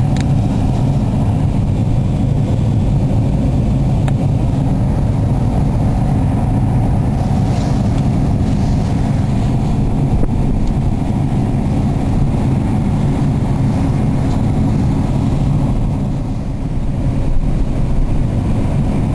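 Steady low rumble of a car driving along a road, road and engine noise heard from inside the car, easing briefly about three-quarters of the way through.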